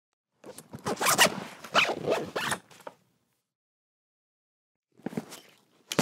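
Backpack zipper being pulled in a quick run of rasping strokes lasting about two and a half seconds. After a pause, a shorter burst of bag handling noise near the end.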